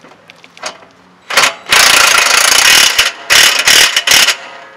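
Impact wrench hammering in bursts, tightening a bolt on a coilover strut: a short burst, a long one of over a second, then three short bursts near the end.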